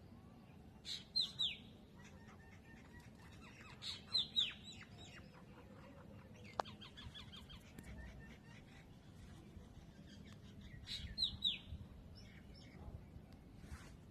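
High, quick chirps in three bursts of two or three falling notes each, about 1, 4 and 11 seconds in, with a single sharp click near the middle.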